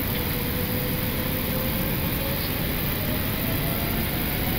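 Airbus A321neo's jet engines spooling up to takeoff thrust, heard inside the cockpit: a steady rush of noise with a thin whine that slowly rises in pitch.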